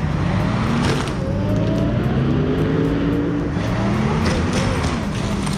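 An engine running under load, its pitch rising and falling as it changes speed, over a noisy mechanical din.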